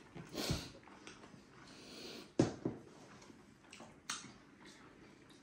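Two people eating jhol momo, Nepali dumplings in a soupy sauce, by hand: quiet wet eating and chewing sounds with a few soft knocks and clicks, the sharpest about two and a half seconds in.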